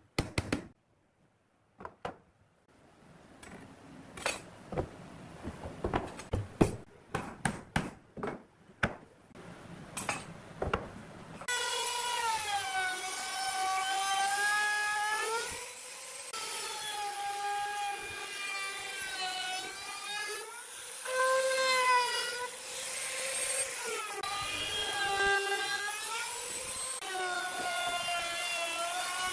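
A wooden mallet knocks on a pine cabinet door frame in a series of sharp taps. About eleven seconds in, a trim router starts and runs as it cuts along the edge of a pine board, its whine repeatedly dipping in pitch and recovering.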